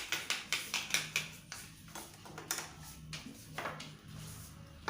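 Light clicks and taps of kitchen utensils against a bowl or pan: quick for the first second or so, then sparser.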